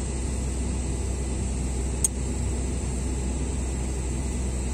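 An engine running steadily, a low even hum, with one sharp click about two seconds in.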